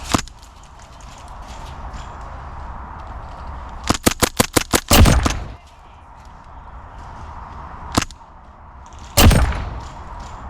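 Airsoft gunfire: a single shot at the start, a rapid burst of about eight shots about four seconds in that runs straight into a louder, longer bang, another single shot about eight seconds in, and a loud bang about nine seconds in.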